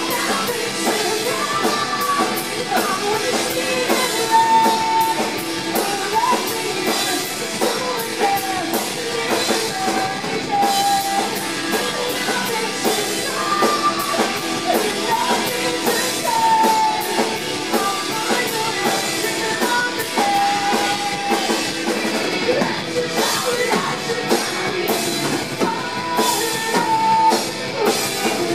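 Live rock band: a woman singing held notes over electric guitars, bass and a drum kit.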